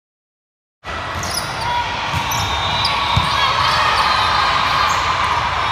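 Silence, then the sound of an indoor volleyball rally cuts in under a second in: the ball being struck and shoes squeaking on the hardwood court, over crowd chatter echoing in the gym.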